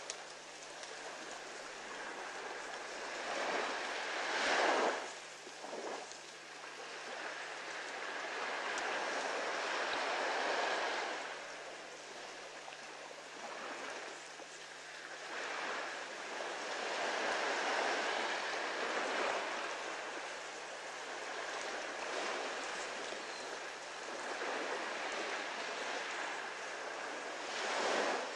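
Surf washing onto a sandy beach, a steady rush that swells and eases off every several seconds as waves break and draw back.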